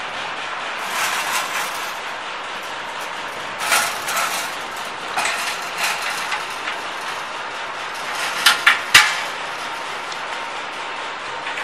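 Steel parts of a chalk making machine frame clanking and knocking as they are handled and fitted, with a few sharp metal knocks, the loudest three in quick succession about three-quarters of the way through, over steady background noise.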